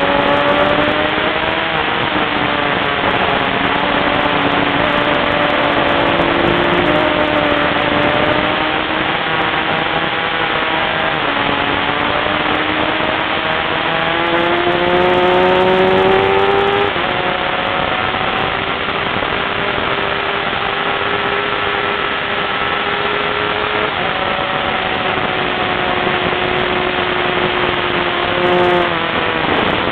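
Onboard sportbike engine running hard at track speed, its note climbing and dropping with throttle and gear changes, under heavy wind rush on the microphone.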